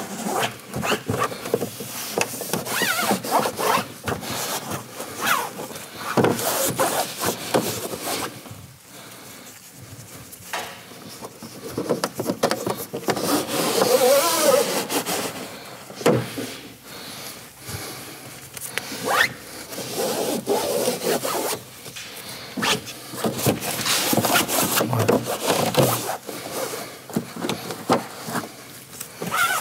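Microfibre cloth rubbing over a plastic car door trim panel in irregular wiping strokes, with short squeaks now and then, quieter for a few seconds about a third of the way in.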